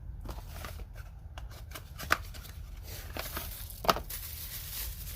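New pliers being unpacked and handled: packaging rustling with scattered small clicks, and two sharp clicks about two seconds in and just before four seconds.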